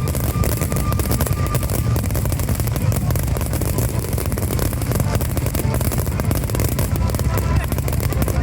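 A dense, rapid barrage of fireworks bursts and crackling, one pop after another with no gaps, with deep booms underneath. Music plays faintly beneath it.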